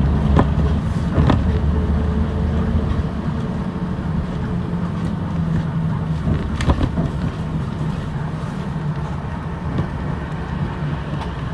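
City bus driving, heard from inside the cabin: a steady low engine and road hum, with a few sharp knocks or rattles, the clearest about six and a half seconds in.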